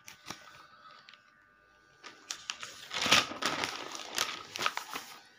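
Paper rustling and crinkling as sheets of exercise paper are handled and a page is turned: a burst of crackles and small clicks that starts about two seconds in.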